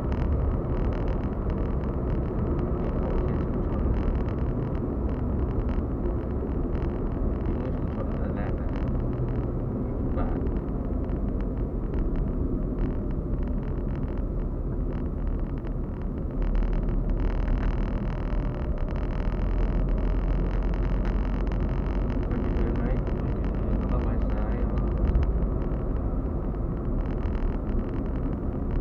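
Cabin noise inside a Suzuki Celerio on the move: steady road and tyre noise with the hum of its small three-cylinder engine, heard through an action camera's own microphone with light rattling from the camera's plastic frame. The low rumble grows deeper and stronger about halfway through and holds for several seconds.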